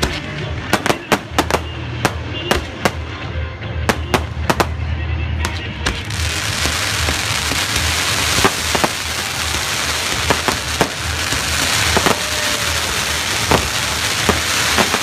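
Fireworks display: a quick run of sharp bangs from launching and bursting shells, then about six seconds in a dense, steady hiss takes over with scattered bangs.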